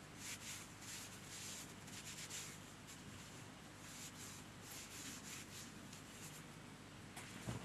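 Faint, irregular rubbing strokes on card, as glue and glitter are worked onto the paper. A soft thump near the end.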